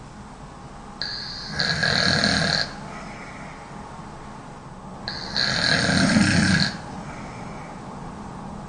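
A woman snoring loud: two snores about four seconds apart, each lasting under two seconds.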